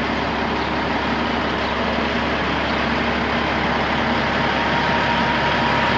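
Diesel engine of a Peterbilt 379 semi tractor, running bobtail, as the truck rolls slowly toward the microphone. The sound is steady and grows slightly louder near the end.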